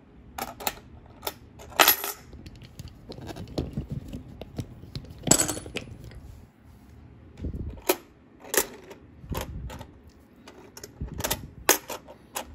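Silver dollar coins clinking against each other as they are counted by hand and stacked into piles on a wooden table: a run of irregular sharp clicks, with a few louder clinks.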